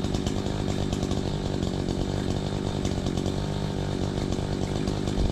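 Gas chainsaw idling steadily while it warms up.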